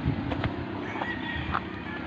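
Footsteps crunching on a loose-rock dirt path, with a rooster crowing: its long drawn-out call starts about halfway through.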